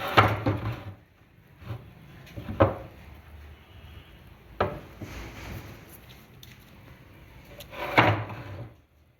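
Irregular knocks and clunks during lead-acid battery plate work, about five of them, the loudest near the start, about two and a half seconds in, and near the end.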